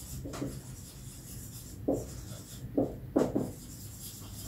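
Dry-erase marker writing on a whiteboard: a few short, separate pen strokes rubbing across the board, with a low steady hum beneath.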